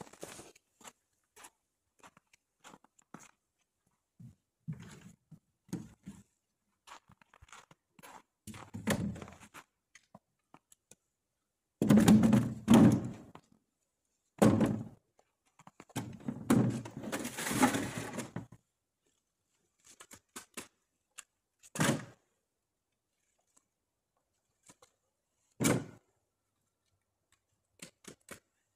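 A series of irregular thumps and knocks, loudest and densest about halfway through, with a few single heavier knocks near the end.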